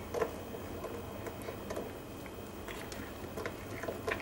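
A spoon stirring a stiff flour batter in a ceramic mug: faint, irregular ticks and scrapes as the spoon knocks and drags against the mug.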